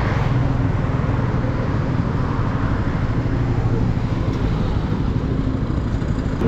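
Motorcycle engine running steadily under way, with a steady rushing noise over it.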